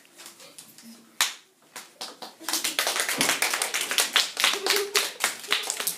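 Applause from a small group of people, starting about two and a half seconds in, with one sharp tap-like clap about a second in.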